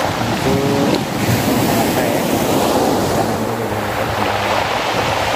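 Surf breaking and washing on a stony beach, a steady rush, with wind blowing over the microphone.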